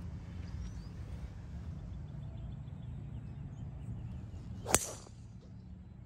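A golf club striking the ball once, a single sharp crack near the end, over a steady low background rumble with a few faint bird chirps near the start.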